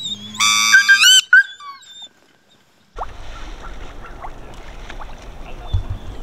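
Wood duck call blown close by in a few quick rising squeals during the first second and a half. After a short lull, a steady low outdoor background with a few faint clicks follows.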